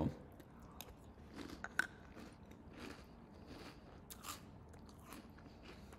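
Faint crunching of someone chewing a mouthful of milk-soaked Cap'n Crunch cereal, with scattered crisp clicks and a sharper click a little under two seconds in.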